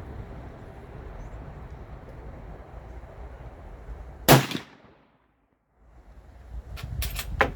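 A single gunshot about four seconds in, the loudest thing here, over steady background noise. The sound drops to dead silence for about a second afterwards, then a few sharp clicks follow near the end.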